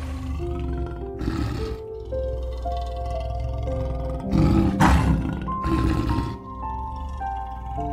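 A male lion roaring three times over background music of held notes, the loudest roar about halfway through.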